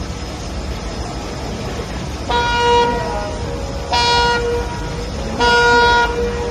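Three short horn blasts about a second and a half apart, each a steady, even tone, over the steady low rumble of a ferry under way.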